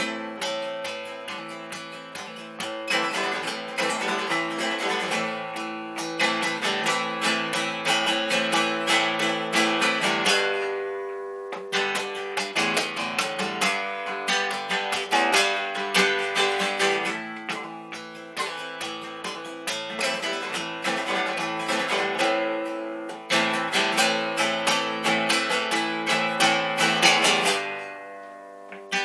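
Acoustic guitar strummed briskly in quick, even strokes. Twice, about ten seconds in and again near the end, the strumming stops and a chord rings out and fades before it starts again.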